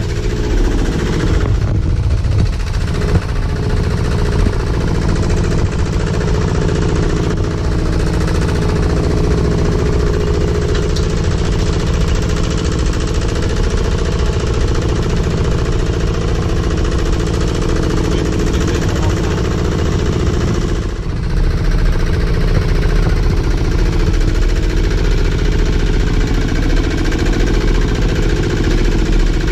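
A two-wheel walking tractor's single-cylinder diesel engine runs steadily under load with a loud, knocking chug while it pulls a loaded trailer over a rough dirt track. The engine briefly eases about two-thirds of the way through.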